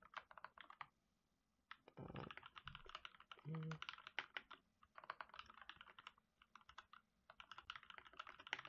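Computer keyboard typing, quick runs of key clicks in several bursts with short pauses between them.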